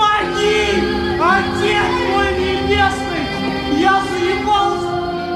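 Pop song playing: a melody over held chords.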